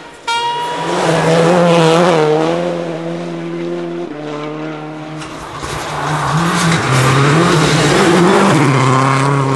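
Rally cars at speed on a snow stage, engines revving hard with fast-wavering pitch as they pass. The sound changes abruptly twice as one car's pass gives way to the next.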